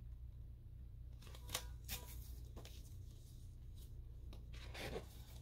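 Faint rustling and handling of a picture book as its page is turned, several short crisp paper strokes over a steady low hum.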